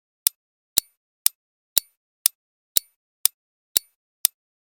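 Countdown timer sound effect ticking steadily, about two sharp ticks a second, marking the seconds left to answer a quiz question.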